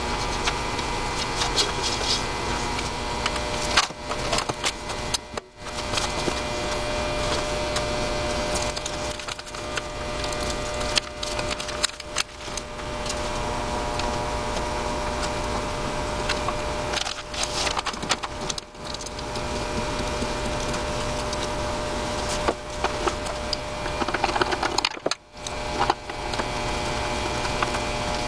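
Scraping and crackling as adhesive residue is worked off a disc sander's metal plate, over a steady hum, with a few brief breaks.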